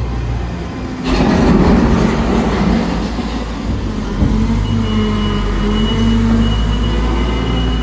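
Liebherr T60-9S telehandler's diesel engine running under load as the machine drives its bucket into a grain pile, picking up about a second in. A single knock comes a little past four seconds, and a steady high whine starts about five seconds in as it works the load.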